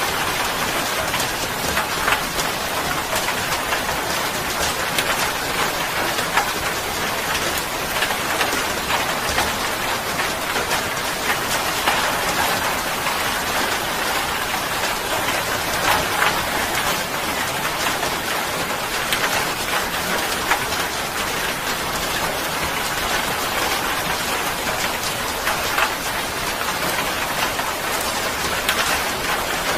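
Steady rain falling: an even hiss with many individual drop hits ticking through it, unchanging throughout.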